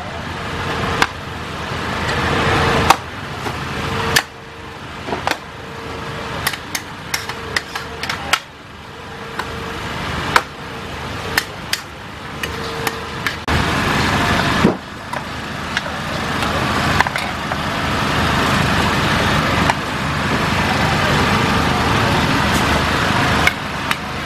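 Metal spatulas clanking and scraping against a large wok as a cook stir-fries a big batch of rice vermicelli, in sharp irregular knocks over a steady rushing noise that grows louder about halfway through.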